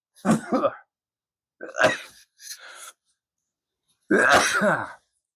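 A man's sneezing and coughing fit: four short explosive bursts, the loudest about four seconds in. He puts it down to dust in his nose.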